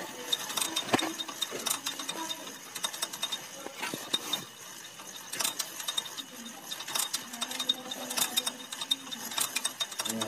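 An old Honda Supra's single-cylinder four-stroke engine, with its cylinder head off, being turned over so the oil pump pushes oil up the passage to the head. It gives irregular mechanical clicks and clatter from the moving gears.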